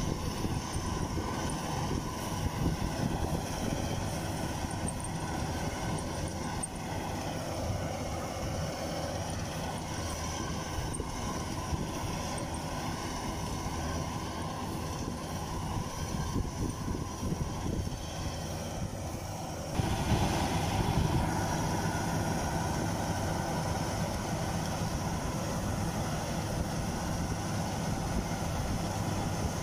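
Kubota combine harvester running steadily as it cuts and threshes rice: a steady engine drone under dense machinery clatter. About two-thirds of the way through the sound jumps abruptly louder and carries on steady.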